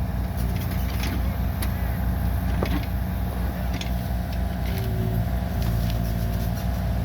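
Bobcat compact excavator's diesel engine running steadily, with a few light clicks and knocks.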